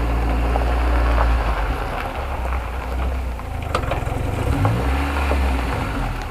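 Niva 4x4's engine running at low revs as the car creeps forward on full left steering lock, its note rising between about three and a half and five seconds in as it pulls away, with a few faint ticks. The car is being driven this way to bring out a click from the steering, hubs or driveline.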